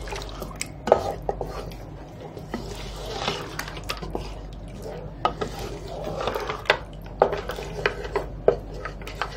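A spoon stirring thick gravy in a steel pot, scraping and clinking irregularly against the metal sides and bottom, with a wet squelch of the sauce as fresh cream is mixed into a mutton curry.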